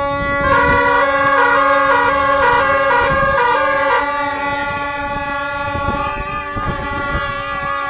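Loud horns blaring during a street march: one held, steady note, and from about half a second in a second horn trills rapidly between two notes for a few seconds, over the noise of the walking crowd.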